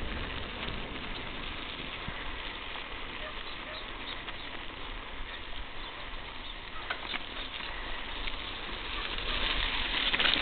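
Tyres rolling over a dirt and gravel roadbed: a steady noise with scattered clicks of small stones, growing louder near the end.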